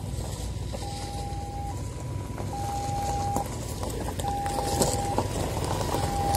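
Ambulance's two-tone siren, alternating between a lower and a higher tone about once a second, over the low rumble of vehicles rolling on gravel.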